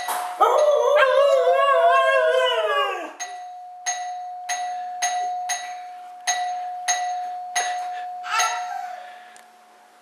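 A Siberian husky howls in a long, wavering call for about three seconds. Then a doorbell rings over and over, about ten quick strikes at roughly two a second over a steady ringing tone, with another short howl near the end.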